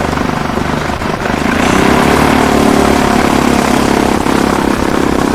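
Small propeller aircraft's piston engine running steadily, getting louder about one and a half seconds in.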